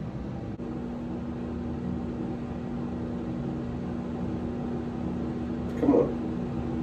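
Steady mechanical hum with a low steady tone that joins it about half a second in; a short vocal sound near the end.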